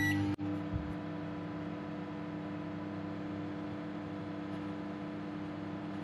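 Microwave oven running and heating a glass of water: a steady hum, with a short beep from the start button at the very beginning.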